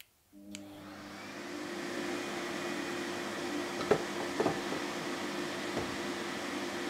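Dust extractor (shop vacuum) on the jointer's hose switched on with a click and spinning up to a steady hum. A few wooden knocks around four seconds in as a board is set down on the jointer table.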